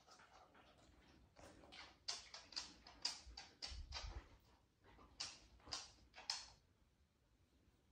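Faint, regular clicking of a Siberian husky's claws on a laminate floor as it walks about, two or three clicks a second, stopping about a second before the end.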